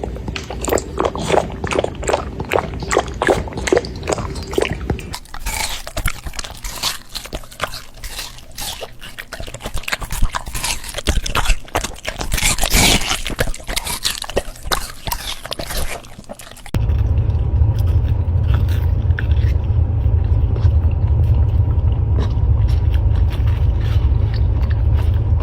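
A dog eating: quick wet clicks and crunches of chewing and licking. About two thirds of the way through, these give way abruptly to a steady low rumble.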